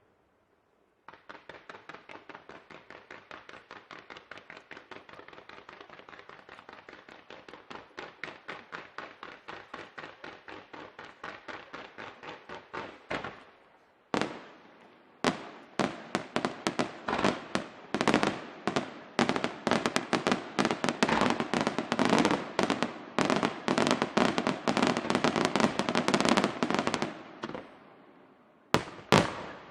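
Fireworks display: a rapid, even train of sharp bangs, about five a second, starting about a second in and growing louder. It breaks off briefly around the middle, resumes louder and denser, pauses again near the end, then picks up once more.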